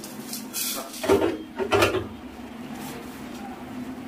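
Plastic cup of a compact nutri blender being set and clicked onto its motor base: a few short knocks and clatters, the loudest two about one and two seconds in.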